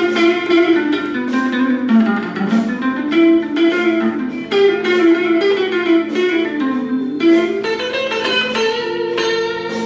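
Guitar improvising a blues solo: single-note melodic lines with notes that glide up and down in pitch, settling on a held note near the end.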